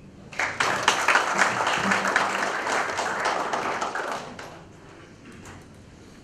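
Audience applauding: a burst of clapping that starts about half a second in, holds for about four seconds, then dies away to a few scattered claps.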